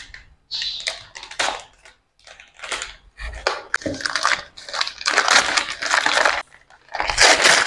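A brown paper mailer envelope being torn open and crumpled by hand: irregular bursts of paper crinkling and tearing, loudest near the end.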